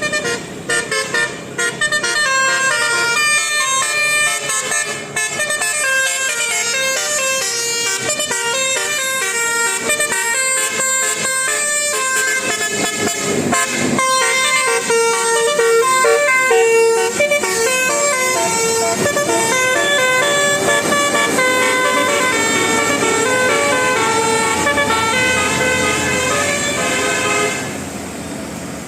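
Bus "telolet" basuri horn, a multi-tone horn, playing a tune of quick stepping notes with several tones sounding together; it stops about a second before the end.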